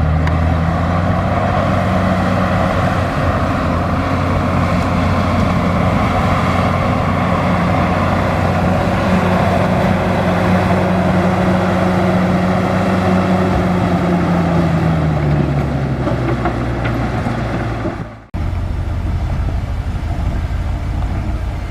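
Large crawler bulldozer's diesel engine running at high revs, its pitch falling away about fifteen seconds in. The sound cuts out sharply near the end and comes straight back.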